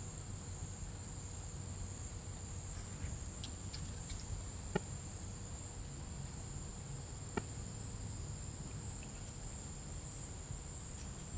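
Steady high-pitched insect chorus, like crickets, over a low background hum, with two sharp clicks about five and seven seconds in.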